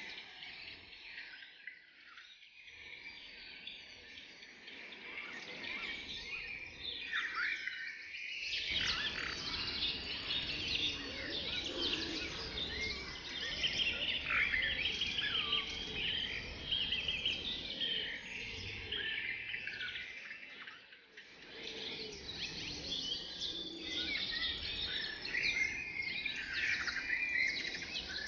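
Forest bird chorus: many birds chirping and trilling at once over a faint background hiss, busier after the first several seconds.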